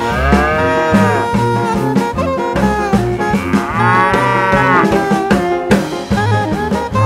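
Two long cow moos, one at the start and one about three seconds in, each rising and then falling in pitch, over upbeat music with brass and a steady beat.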